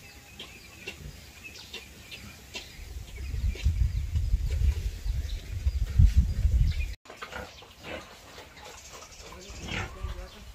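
Farmyard animal sounds: high chirps by the duck pond under a low rumble that swells through the middle and cuts off abruptly, then a sow and piglets in a pen with short, scattered high calls.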